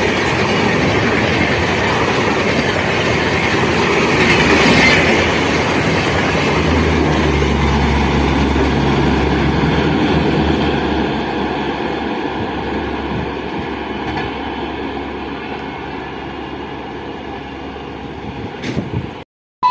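LHB passenger coaches of an express train running past at speed: a steady rush of wheels on rail. It fades gradually over the second half and cuts off abruptly near the end.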